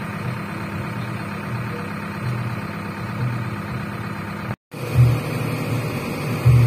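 JCB backhoe loader's diesel engine running steadily, with an uneven low pulsing throb. The sound cuts out for a split second about four and a half seconds in, then carries on.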